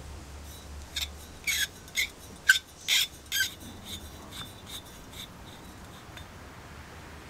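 Brass burner head of a Max Sievert blowtorch soldering iron being twisted off its threaded brass fuel tube: about six short, squeaky metal-on-metal scrapes in quick succession from the dry threads, then a few fainter ticks as the head turns more freely.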